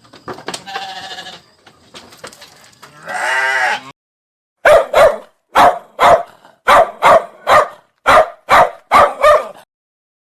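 An animal calling: one longer call about three seconds in, then a quick run of about eleven short, loud calls, roughly two a second.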